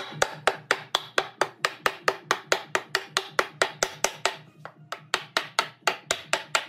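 Wooden mallet knocking on timber, tapping a pine leg bracket home into its slot in a wooden beam. A fast, even run of sharp knocks, about four a second, that stops shortly before the end.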